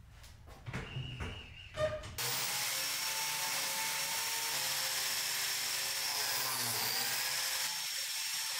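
A few knocks and clatters of clamps being set on a wooden 4x4, then, about two seconds in, a Makita biscuit jointer's motor comes on and runs with a steady high whine as it cuts a biscuit slot. Its pitch dips briefly and recovers about seven seconds in.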